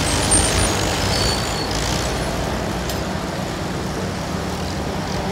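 Several vintage Farmall tractors' engines running steadily at low speed as the tractors back up together, a continuous low rumble.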